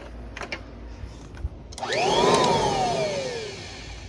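Kirby Heritage II upright vacuum motor whining up sharply in pitch about two seconds in, then winding down slowly over a second and a half. The owner calls it a horrible noise it has never made before and thinks the bearings need checking.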